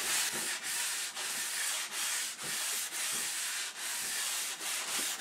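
Hand sanding of walnut wood with 180-grit sandpaper on a sanding block: a scratchy hiss of back-and-forth strokes, about two a second.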